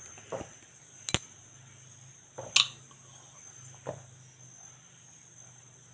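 Steady high-pitched insect trill with a faint low hum under it, broken by a few short sharp clicks: a thin one about a second in and a stronger knock about two and a half seconds in.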